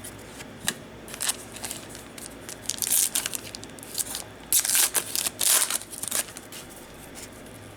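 Foil wrapper of a baseball trading-card pack being crinkled and torn open, in a string of short crackly bursts, the loudest about halfway through.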